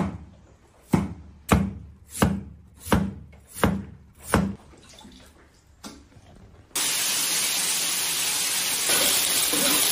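Cleaver chopping raw potato slices on a wooden chopping board: seven sharp strokes about two-thirds of a second apart, then one lighter knock. About seven seconds in, a steady loud sizzle cuts in suddenly: potato slices frying in hot oil in a large wok.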